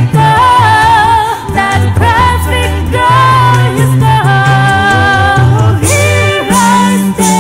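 A cappella vocal group singing through microphones, several voices in chord over a low bass part. About six seconds in it switches to a different a cappella song by a smaller group.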